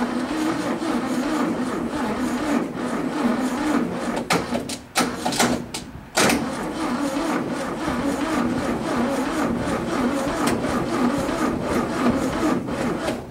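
Air-cooled VW bus flat-four engine (code B5) cranking over on its starter, run from a jump pack, stopping briefly and starting again about six seconds in. It turns over with some compression but does not fire.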